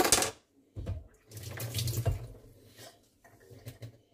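Eggs frying in oil in a non-stick pan, sizzling unevenly, with a short loud burst at the very start and the sizzle fading toward the end.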